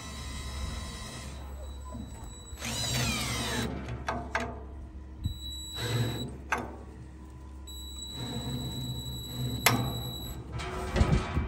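DeWalt 20V XR cordless drill/driver driving screws through a metal bracket into a cedar frame. It runs in three short bursts with a steady whine, the last and longest lasting about three seconds, with a few sharp clicks and knocks between bursts.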